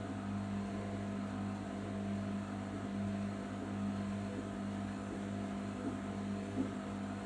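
Arçelik 5083 washing machine running during its final rinse and spin stage, a steady low motor hum with a faint higher tone.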